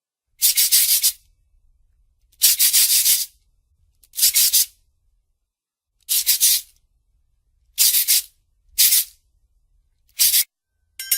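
Cartoon sound effect: seven short, hissing, scratchy bursts with a fast rattling texture. Each lasts under a second, and they come at uneven gaps.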